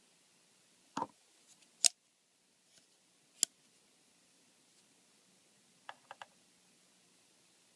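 Metal clicks and snaps from a Leatherman OHT multitool being handled: a double click about a second in, two loud sharp snaps, then three small quick clicks near the end.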